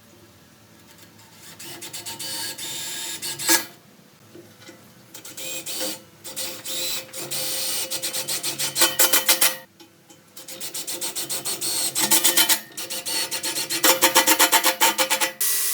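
A hand tool rasping on metal in quick back-and-forth strokes, in four bouts separated by short pauses, with a faint ring from the metal.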